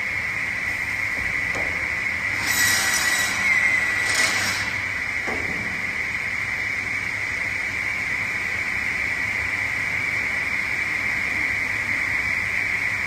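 Automatic wood cut-off saw machine running with a steady high whine. Two short hissing bursts come about two and a half and four seconds in, with a couple of faint knocks around them.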